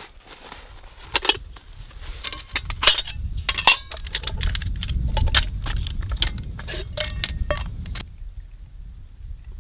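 Metallic clinking and rattling, a quick series of sharp knocks, over a low rumble that builds from about two seconds in. The rumble and knocks stop abruptly about eight seconds in.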